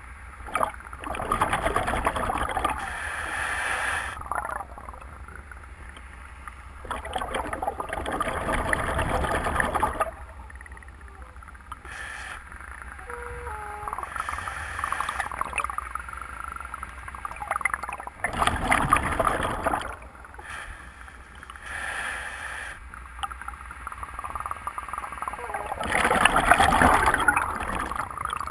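A scuba diver's regulator underwater: bursts of exhaled bubbles rushing and gurgling for a second or three at a time, every few seconds, with quieter stretches between breaths.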